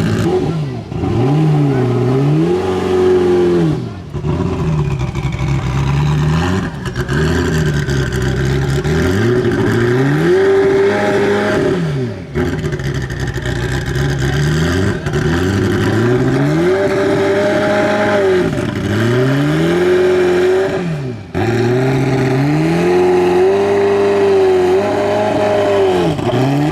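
Ferrari F40 LM's twin-turbo V8 revving hard, again and again, its pitch climbing and falling in repeated sweeps, with brief breaks every few seconds.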